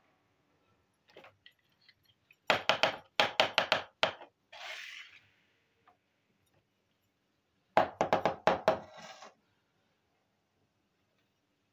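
Small plastic toy kitchen pieces being handled and set down on a hard board: two bursts of quick light plastic clacks and knocks, one about two and a half seconds in and another about eight seconds in.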